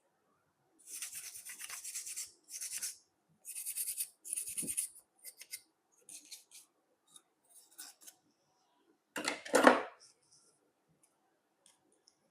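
Hand-work on a small part: four scratchy rubbing or scraping strokes, then light clicks, and one louder scrape with a knock about nine seconds in.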